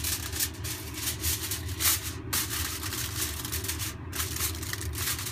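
Aluminium foil crinkling and crackling as a sheet is spread and pressed down over a glass baking dish, in a quick irregular run of crackles, with a low steady hum underneath.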